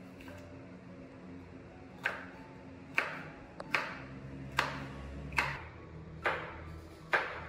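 Kitchen knife chopping on a cutting board: seven sharp chops at a steady pace of about one a second, starting about two seconds in, each with a short ring.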